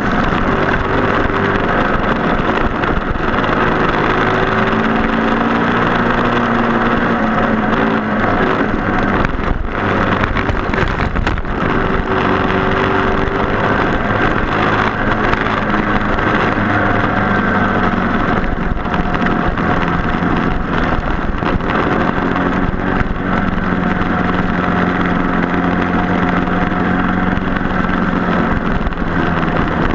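Several Briggs & Stratton Animal four-stroke single-cylinder kart engines running at racing speed, overlapping pitches rising and falling as the karts lift off and pull through the corners.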